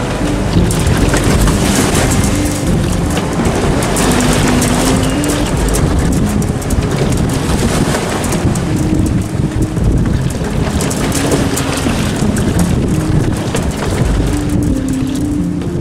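Loud wind buffeting the microphone over rushing water and waves against the hull of a sailboat beating upwind, close-hauled, in rough seas.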